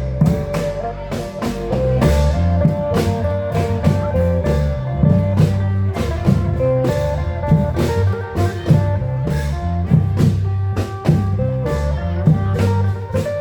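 Isan klong yao (long drum) band music: a fast, even beat of drum strikes under a plucked string melody and a steady bass line.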